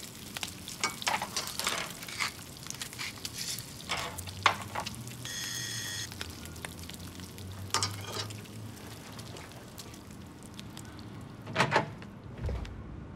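Food sizzling in a stainless steel frying pan while a spatula stirs it, scraping and clicking against the pan. About five seconds in, a short electronic ring like a doorbell sounds for under a second. Near the end there are sharp clicks as a door is opened.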